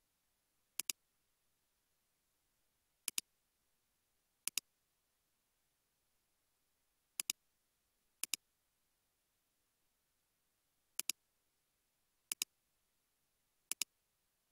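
Computer mouse clicking: eight quick press-and-release click pairs, spaced irregularly a second or a few seconds apart, with silence between them.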